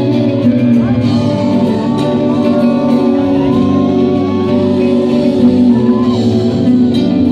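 Live band playing through a concert PA: amplified acoustic and electric guitars over a steady bass line, with a sung melody gliding over the top.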